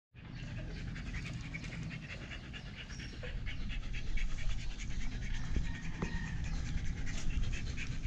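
One-month-old Belgian Malinois puppy eating dry kibble from a plate, a rapid run of small chewing and mouthing clicks.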